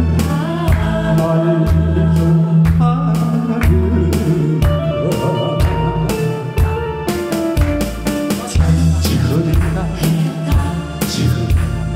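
A man singing a Korean trot song live into a microphone over an accompaniment with bass and a steady drum beat.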